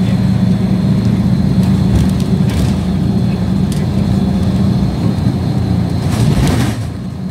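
City bus engine running and road noise heard from inside the moving bus, a steady low drone. A short hiss comes about six seconds in, and the drone dips slightly near the end.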